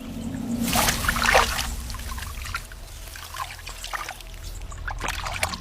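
Shallow water trickling and lightly splashing, with a few brighter splashy sounds in the first second and a half, over a low steady hum.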